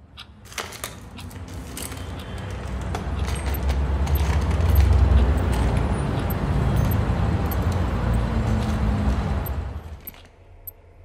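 A rush of noise with a deep rumble that swells to a peak about five seconds in and fades out near ten seconds, scattered with light metallic clicks and jingles: a swelling transition sound laid under a time-lapse of city traffic.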